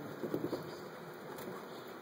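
A dog's paws pattering on carpet as it rushes in after a laser dot: a quick run of soft thumps about a quarter of a second in.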